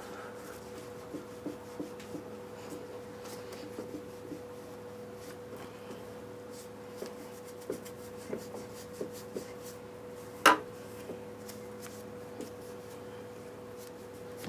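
Rubbing and scrubbing as grime is cleaned off a moped by hand, with scattered light taps and one sharp knock about ten and a half seconds in, over a steady hum.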